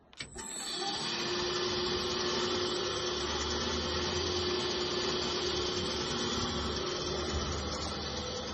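Electric drive motor and gearbox of a Bode 80-ton welding rotator switched on from its pendant control: a click, then a steady running whine with a low hum that builds within about a second and holds.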